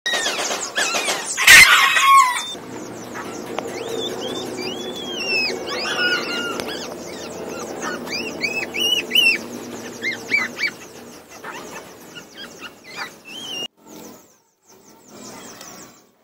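Newborn puppies squeaking and whining in many short, high, rising-and-falling cries while they nurse. There is a loud sudden noise about a second and a half in.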